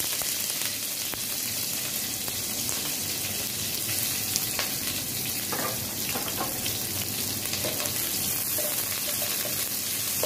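Sliced onions frying in hot oil in a pan: a steady sizzling hiss, with a few light clicks in the middle.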